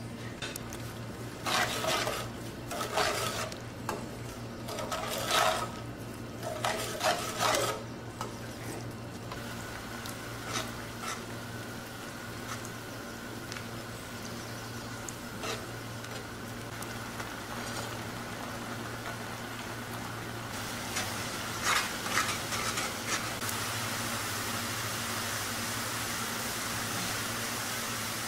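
Spatula stirring sweet vermicelli and sugar in a metal pan: a run of scraping strokes in the first several seconds and another short run later, over a steady sizzle of the syrup cooking that grows louder toward the end.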